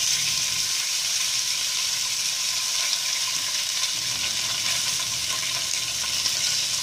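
Masala-marinated fish fillet sizzling steadily in hot oil as it shallow-fries in a frying pan.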